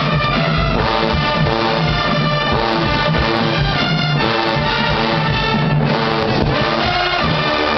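Marching band brass section playing loud full chords, with sousaphones carrying a low bass line underneath.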